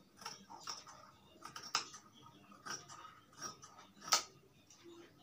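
Large scissors snipping through folded cotton-like fabric: a run of short, crisp cuts at roughly two a second, with one louder snip about four seconds in.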